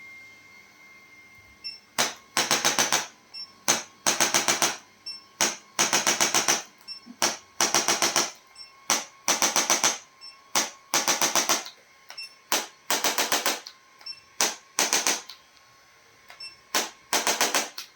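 Percussive massage strokes: rapid tapping in about ten short bursts, each lasting under a second, recurring every second and a half or so.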